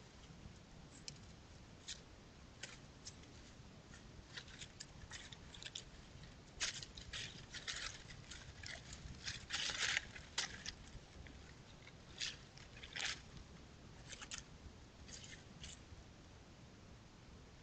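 Raccoons rustling and scratching in dry leaf litter as they forage: irregular crisp crackles, busiest and loudest about halfway through.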